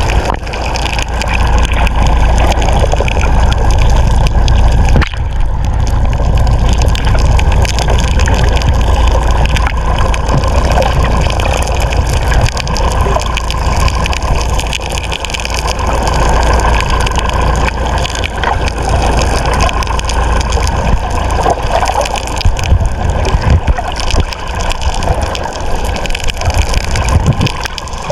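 Small fishing boat underway: its motor runs steadily under a constant rush of water and wind noise.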